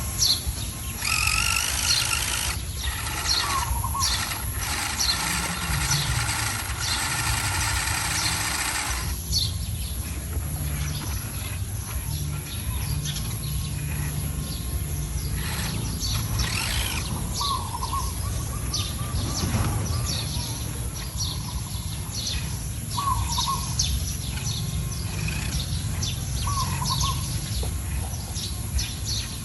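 Birds chirping and calling, one short call of the same shape repeating every few seconds, over a constant low rumble. A steady layered tone runs under the birds for the first third and then stops.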